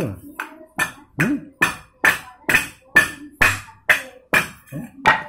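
Wooden rolling pin pounded down into a small stainless-steel bowl, like a pestle in a mortar: a steady run of sharp knocks, about two and a half a second, stopping at the end.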